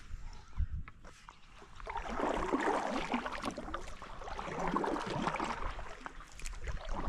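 Wooden canoe paddle pulling through calm water: two long strokes, each a couple of seconds of water swishing past the blade, after a couple of light knocks in the first second.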